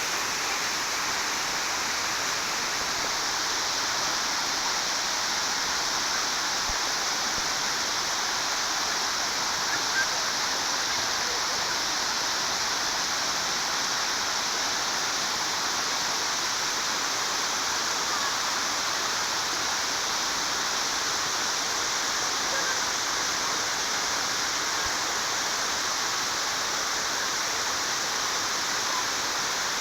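Water rushing steadily at a dam, a continuous even hiss of flowing water.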